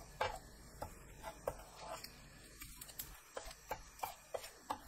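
Wooden spoon pressing and pushing sheets of gim (dried laver) about in a dry frying pan as they toast: a quiet run of light, irregular clicks and crackles, about three a second.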